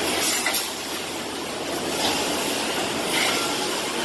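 Automatic nail-and-screw bagging line running: steady noise from the bagging machine and its conveyors, with three short bursts of higher-pitched clatter or hiss.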